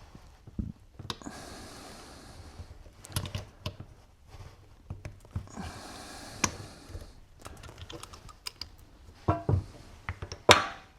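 Light metallic clicks and taps from tools and compressor parts being handled as the shaft seal is pulled out of a Denso 6SEU compressor's nose on a self-tapping screw. There are two short stretches of scraping, and a sharper click near the end.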